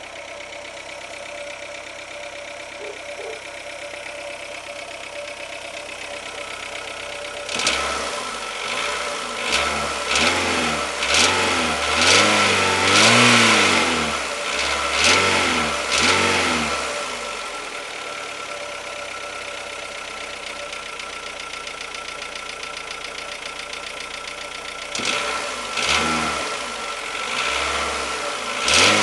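Renault Logan's 1.6-litre eight-valve petrol engine idling, then revved in a series of short blips from about a quarter of the way in, settling back to idle, and blipped again near the end. The engine has a knock whose cause the owner does not know.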